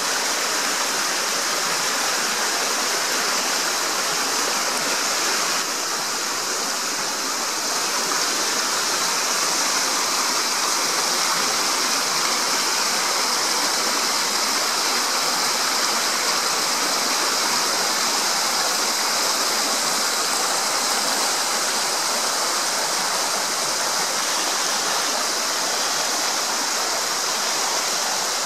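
Shallow rocky stream tumbling over stones and small rapids: a steady rush of running water.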